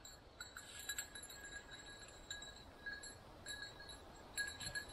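Faint, irregular tinkling of a small metal bell on a bird dog's collar, ringing in short jingles as the dog moves through the cover.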